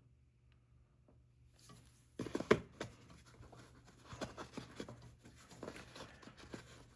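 Zippo lighters being handled and shifted about: a busy run of light clicks, taps and scrapes that starts about two seconds in.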